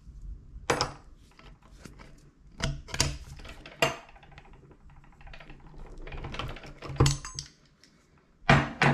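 Metal tools clicking and knocking against a copper pipe and a brass compression fitting as its nut is tightened with a spanner while a pliers wrench holds the fitting body. A handful of separate sharp clicks, with quieter handling in between.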